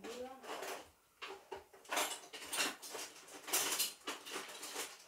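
Kitchen utensils and dishes being handled on a table: a series of short, irregular clinks and scrapes.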